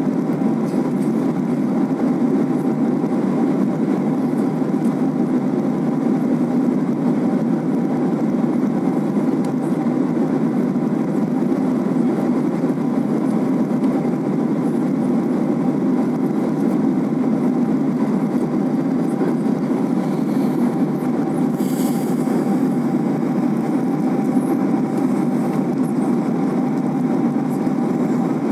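Jet airliner cabin noise at cruise: a steady, dense rumble of engines and airflow, with a faint steady hum riding above it.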